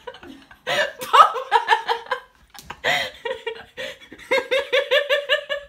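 A woman laughing in several bursts, the last a quick, even run of 'ha-ha' pulses.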